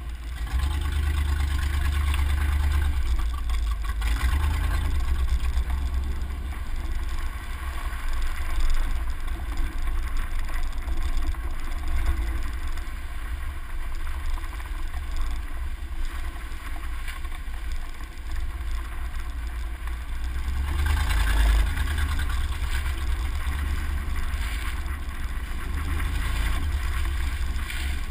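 Truck driving along a dirt and gravel trail, heard from a camera mounted outside on its door: a steady deep rumble of engine, tyres and wind on the microphone, swelling louder for a moment about two-thirds of the way through.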